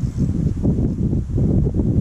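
Wind buffeting the microphone: a loud, gusty low rumble that swells and fades irregularly.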